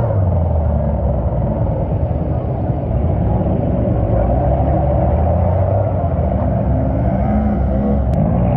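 Lifted mega truck's engine running hard under load as its giant mud tyres spin and churn through deep mud. It makes a loud, steady rumble whose pitch wavers and swells as the driver works the throttle.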